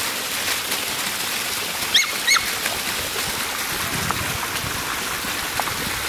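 Water rushing steadily down a rocky fountain-waterfall, with two short high squeaks about two seconds in.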